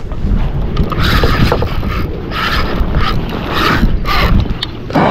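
Fishing reel working in short rasping spells as the angler fights a hooked catfish that is running for cover, over a constant low rumble.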